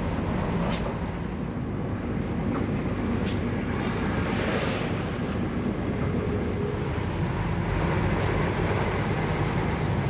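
Bus engine and road noise heard from inside the passenger cabin: a steady low rumble, with a couple of light clicks in the first few seconds.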